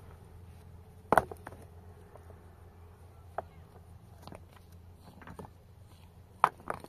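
A few sharp knocks over a low steady hum: the loudest about a second in, two more close together near the end, and fainter clicks between them.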